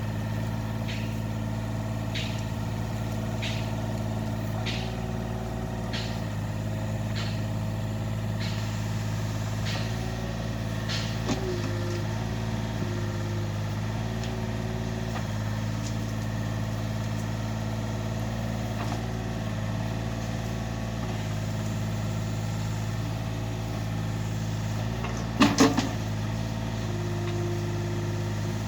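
Yanmar B27 mini excavator's diesel engine running steadily. Over the first half a faint tick comes about once a second, and near the end there is a brief cluster of loud knocks.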